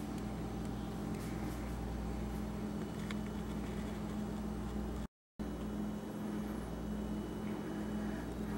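A steady low hum with a few faint clicks, broken by a moment of dead silence about five seconds in.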